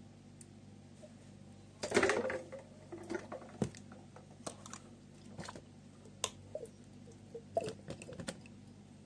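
Small clicks and knocks as a glass jar of sweet-simmered chestnuts and its lid are handled and chestnuts and syrup drop into a plastic mixing bowl, with a short clatter about two seconds in, the loudest sound, and scattered taps after it. A low steady hum runs underneath.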